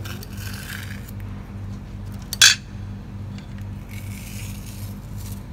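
A single sharp clink of a hard object about two and a half seconds in, over a steady low hum.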